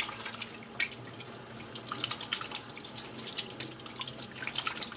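Water running from a sink tap onto hands being washed with soap, a steady splash with many small crackling drips.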